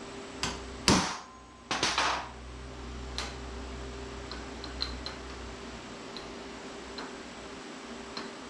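A sharp metallic clank about a second in, briefly ringing, then a quick cluster of knocks and a few light clicks: metal parts or tools being handled on a workbench, over a steady electrical hum.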